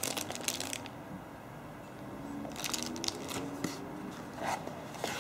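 Plastic bag crinkling around a bagged USB cable, then a cardboard box being handled, in a few short rustles with light knocks.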